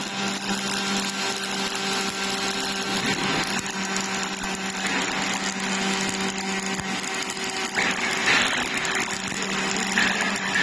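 Robotic MIG welding arc running a continuous fillet weld on a steel box beam, a steady hiss over a low steady hum, louder in short stretches near the end.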